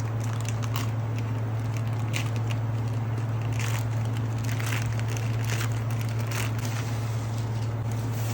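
Packaging being handled during an unboxing: brief crinkling and rustling of plastic wrap and cardboard, coming about once a second, over a steady low hum.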